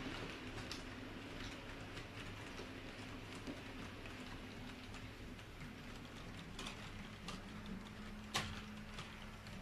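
H0-scale model freight train rolling past, its wagon wheels clicking irregularly over the rail joints over a low steady hum, with one sharper click near the end.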